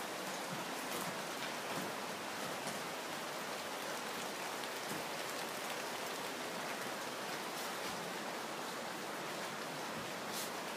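Steady rain falling: an even hiss with a few faint, scattered drop ticks.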